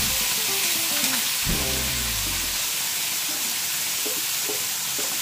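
Hot oil sizzling in a wok as pounded cassava leaves are tipped in from a pot: a steady frying hiss.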